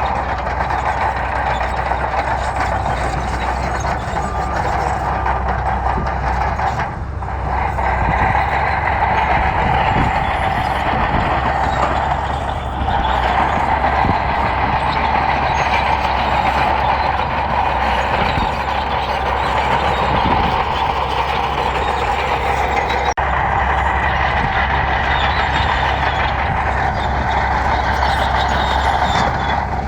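Heavy diesel earthmoving machinery working gravel, its engine running steadily under load, with a couple of brief dips in level.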